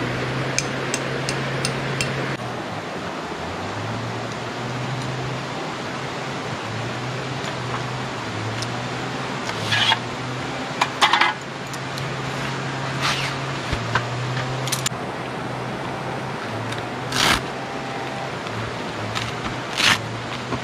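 Metal poles of a folding camp table clacking and clinking as it is pulled from its bag and unfolded: a handful of sharp knocks spread through the second half, over a low hum.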